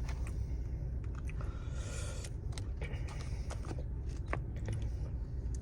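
Close-up chewing and biting of fried chicken, with wet smacks and small clicks, over a steady low rumble of the car's cabin.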